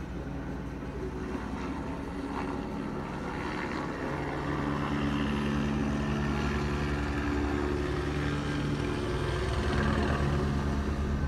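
Steady engine drone with a fast low pulse, growing gradually louder.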